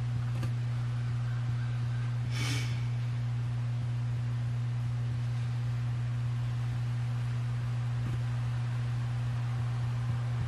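Steady low electrical hum, one deep tone with a fainter overtone above it, with a brief hiss about two and a half seconds in.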